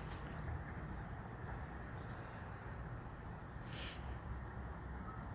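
Crickets chirping in an even rhythm, about three chirps a second, over steady low outdoor background noise.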